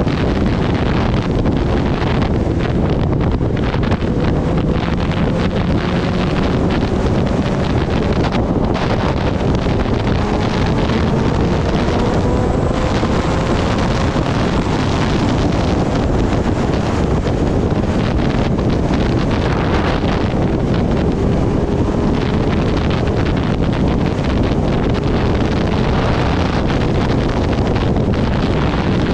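Steady, loud wind buffeting on the microphone of a rider at speed on a Kawasaki Ninja ZX-10R. The bike's inline-four engine note sits faintly beneath it, slowly rising in pitch as it gathers speed.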